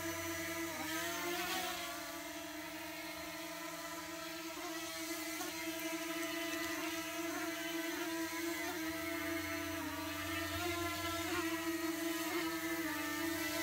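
DJI Mini 2 drone's propellers whining steadily in flight, with small wavers in pitch as the motors adjust and a bigger dip about a second in.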